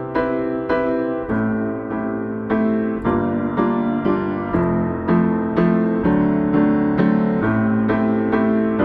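Piano music: a gentle, steady run of notes about two a second, each struck and fading, over a changing bass line.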